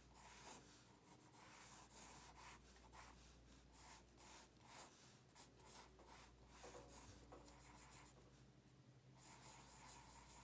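Faint scratching of a graphite pencil on paper: a quick run of short strokes and circular scribbles as a wheel is sketched.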